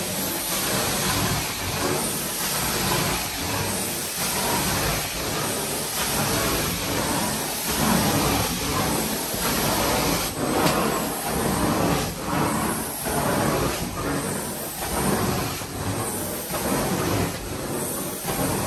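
Carpet-cleaning extraction wand pulling water from carpet under strong vacuum suction: a steady hiss that swells and eases in a repeating rhythm about every two seconds, with each stroke of the wand.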